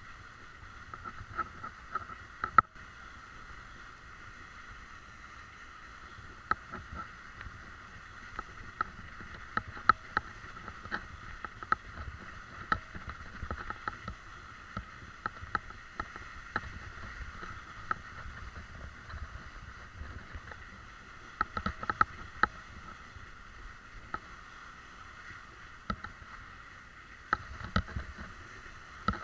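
Bicycle rolling over a snow-covered track: steady rolling noise from the tyres with frequent irregular clicks and knocks from the bike jolting over bumps, and one sharp knock about two and a half seconds in.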